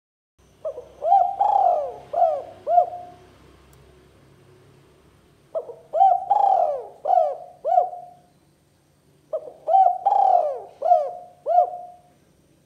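Spotted dove cooing: three phrases of about five notes each, a few seconds apart, each with a short lead-in note, a longer drawn-out coo and quicker closing notes.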